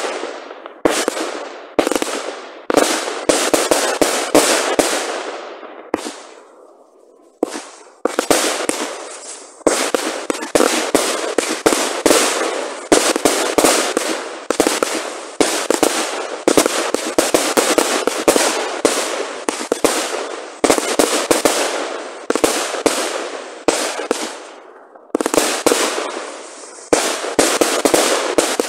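Consumer firework batteries firing, their shells bursting overhead in a rapid, near-continuous string of sharp bangs with crackle trailing after them. There is a short lull about six seconds in.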